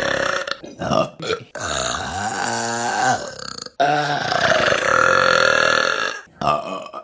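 Women burping loudly, several burps in a row with short gaps between them. Two of the burps are long and drawn out, about two seconds each, with a wavering pitch; the others are short.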